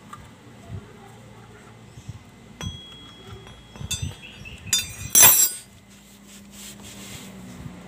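Small metallic clinks and ticks as bolts are worked out of a scooter's CVT cover, with a short ringing clink about two and a half seconds in and a loud metal clatter about five seconds in.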